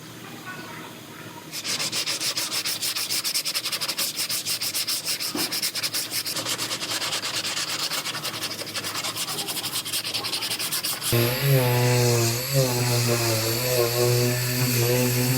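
Hand sanding on a car body panel: quick, rhythmic back-and-forth scratching strokes, starting about a second and a half in. About eleven seconds in, a power tool's motor starts and runs steadily with a wavering whine, louder than the sanding.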